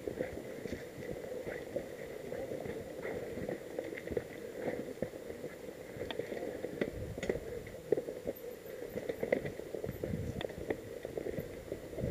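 Mountain bike moving over a rough, dry dirt single track. The bike rattles steadily and the tyres crunch over dirt and dry leaves, with irregular clicks and knocks throughout.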